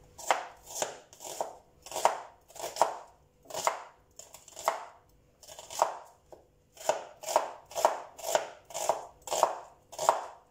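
Kitchen knife slicing a red onion on a wooden cutting board: a run of crisp cutting strokes against the board, about two a second, with a couple of brief pauses.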